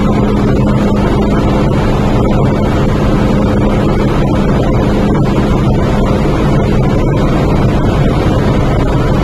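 MTR Tsuen Wan Line M-Train standing at a platform with its doors open: a steady, loud hum from the train's onboard equipment and air-conditioning, with a steady low tone.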